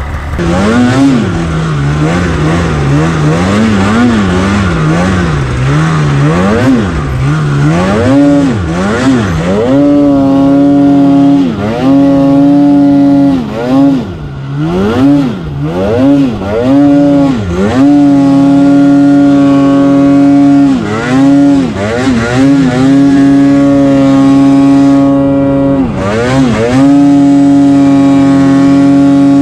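Polaris RMK mountain snowmobile engine revving up and down again and again as it works through deep powder, then held at high revs for stretches of a few seconds with brief throttle lifts between.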